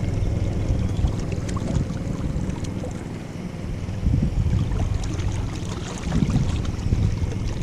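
Wind buffeting the microphone in a steady low rumble, with surf washing on the beach behind it.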